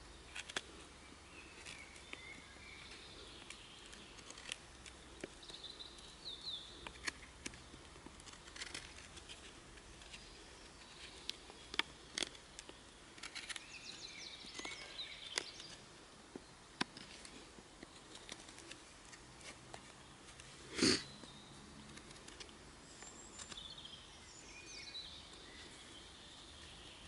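Knife blade whittling a wooden stick: scattered small scrapes and clicks as shavings come off, with birds singing in the background. About two-thirds of the way through, one short sound stands out much louder than the rest.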